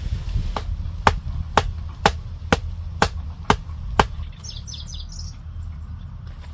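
A wooden stake being pounded into the ground with a length of wood used as a mallet: about eight sharp knocks, roughly two a second, stopping about four seconds in.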